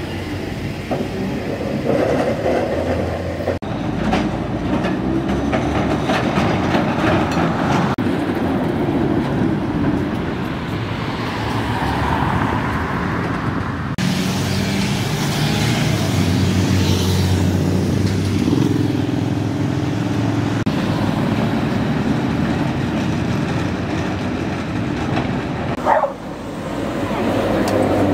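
Vintage Woltersdorf tramcar running along street rails and passing close by, with steady wheel-on-rail and motor noise. The sound changes abruptly three times.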